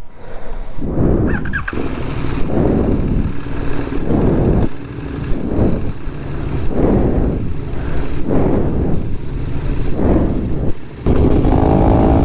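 Motorcycle engine running under way, its sound swelling and easing about once a second. About eleven seconds in it drops briefly, then settles into a steady engine tone.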